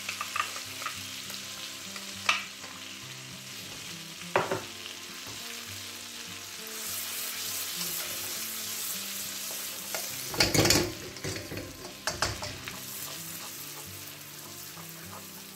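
Chopped garlic sizzling in melted butter and oil in a hot wok, stirred with a wooden spoon that scrapes and knocks against the pan. The loudest knocks come about ten seconds in.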